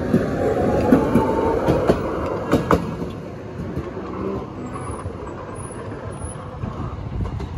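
A Toden Arakawa Line streetcar passing close by. Its wheels clack over rail joints and a whine falls in pitch. It is loudest in the first few seconds, then fades to a lower rumble.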